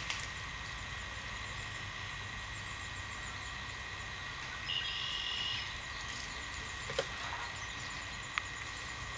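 Quiet pine-woods ambience with a thin high chirping repeating several times a second, a short buzzy call about five seconds in, and a couple of faint sharp clicks near the end.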